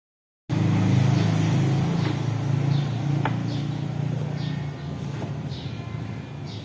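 A motor vehicle's engine, loud at first and fading gradually over the next few seconds. A faint high chirp repeats about once or twice a second over it.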